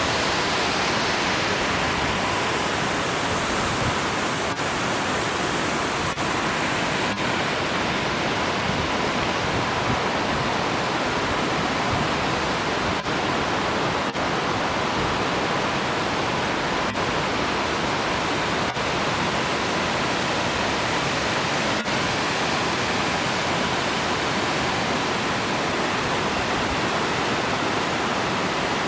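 Waterfall: a loud, steady rush of falling water that does not let up.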